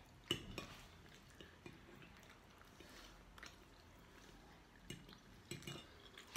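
Metal forks clinking and scraping on ceramic plates while eating pasta: scattered faint clinks over quiet room tone.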